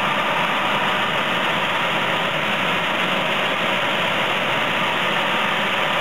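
Furnace blower fan running steadily, with air rushing out of the fresh-air adder duct into the furnace plenum close to the microphone: a continuous, even rush.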